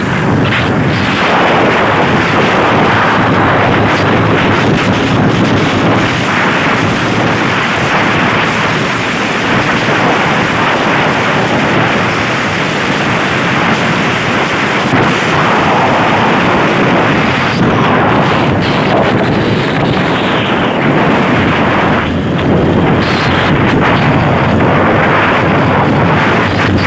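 Loud, steady wind rushing and buffeting on the microphone of a camera moving fast along an open road.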